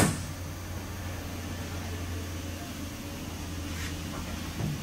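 A steady low mechanical hum with background hiss, opening with one sharp click.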